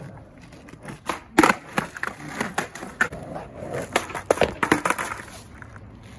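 Skateboard on concrete: a run of sharp clacks as the tail pops and the deck and wheels slap back onto the ground, with wheels rolling between them. The loudest clack comes about a second and a half in, and the clatter dies away near the end.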